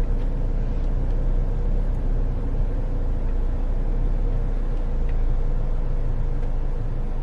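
Car running in a drive-through line, heard from inside the cabin: a steady low rumble with a faint steady hum.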